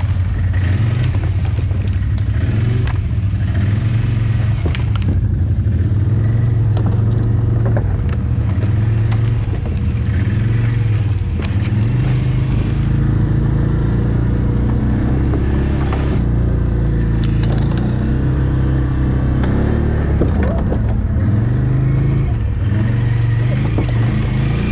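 Quad (ATV) engine running at low speed, its pitch rising and falling with the throttle, with scraping and rustling from brush against the machine and scattered knocks.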